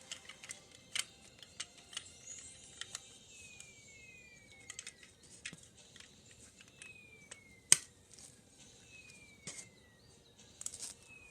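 Plastic Lego bricks clicking and clattering as they are handled and pressed together, with one sharp click about two-thirds of the way through. A faint high tone, falling in pitch, repeats every couple of seconds from about a third of the way in.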